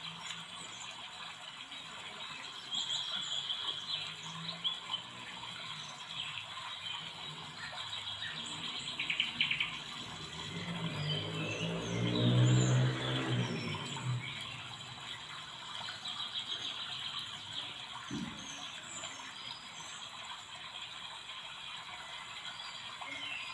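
Hand-sewing sounds: thread drawn through fabric and a sequined trim band rustling and scratching under the fingers. A low hum swells and fades around the middle, and there is a single click later on.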